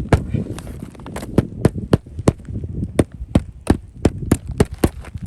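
Hammering on an asphalt shingle roof: a quick run of sharp knocks, about three a second.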